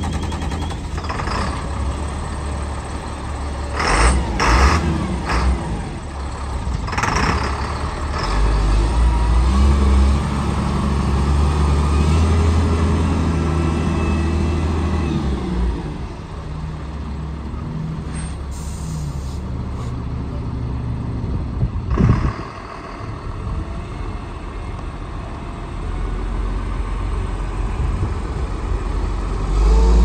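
1997 Peterbilt 330 truck's diesel engine running, louder from about eight to sixteen seconds in as it pulls. Short air-brake hisses come around four and seven seconds in, and a sharp one about twenty-two seconds in.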